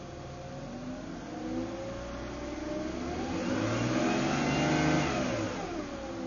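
Engine revved and let fall back to idle: a small rise and fall in revs early on, then a longer rev that climbs from about three seconds in, peaks near five seconds and drops back just before the end.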